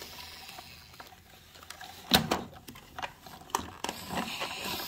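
Plastic toy car carrier truck being handled: scattered clicks and knocks of plastic parts, the loudest about two seconds in and a cluster of smaller ones near the end.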